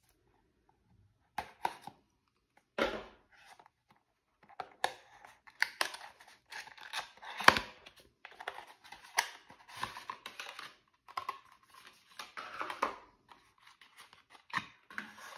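Cardboard SSD box being opened by hand: the inner tray sliding out of its sleeve and the flaps and packaging rustling and scraping, with scattered sharp clicks.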